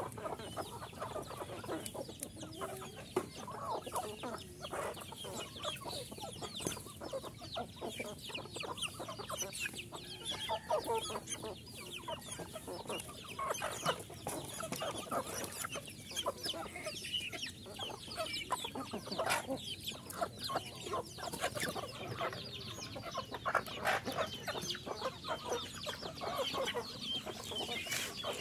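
A flock of hens and roosters clucking on and off, many short calls overlapping one another.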